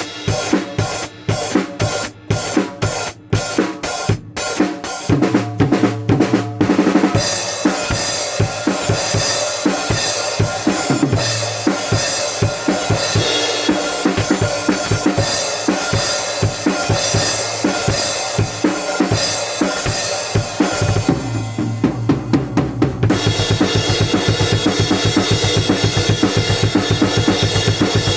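Rock music with a prominent drum kit: a run of separate accented hits for the first several seconds, then a full groove with cymbals, a short drop-out a bit over twenty seconds in, and a fast steady beat to finish.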